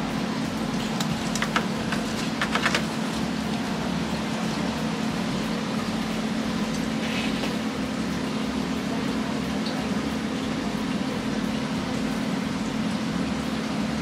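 Steady mechanical hum with a rushing, air-like hiss, like a ventilation fan running, with a few light clicks about one and a half and two and a half seconds in.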